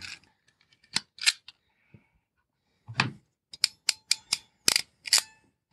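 Hand crimping pliers clicking as they press a cable shoe onto a wire end: a couple of clicks about a second in, then a quick run of about eight sharp clicks from about three seconds in.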